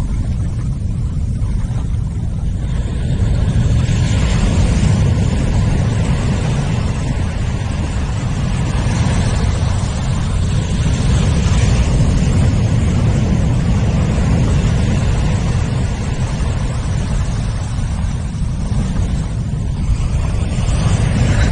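Wind rumbling on an action camera's microphone over surf washing across sand, the wash swelling several times as waves run in.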